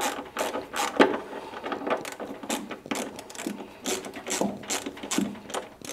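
Socket ratchet with a 7 mm socket clicking in uneven runs, a few clicks a second, as a bolt is backed off.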